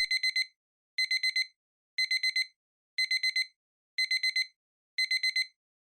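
Digital timer alarm beeping: groups of four quick high-pitched beeps, one group each second. It marks the end of a 25-minute Pomodoro work period.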